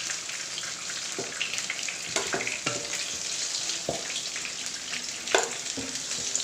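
Batter-coated chicken pieces sizzling in hot coconut oil, with several sharp clinks and scrapes of a spoon in the pan as the fried pieces are scooped out.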